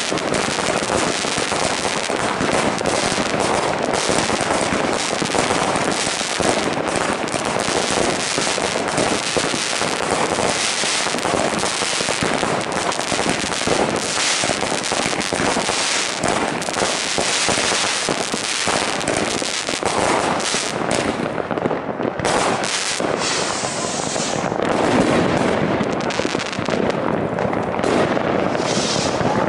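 New Year's Eve fireworks: rockets and aerial shells bursting overhead in a dense, unbroken run of bangs and crackling. The sharp cracks thin out a little in the last few seconds.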